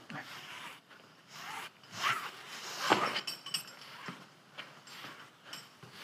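Climbing rope running through a rappel device in short, uneven pulls during a descent, with shoes scuffing against the sandstone wall. The sharpest, loudest scrape comes about three seconds in, followed by a few light metallic clinks.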